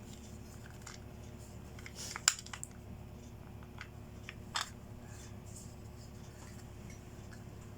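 A few light clicks and taps of small plastic toy pieces being handled and set down, the sharpest about two seconds in and another about four and a half seconds in, over a faint steady hum.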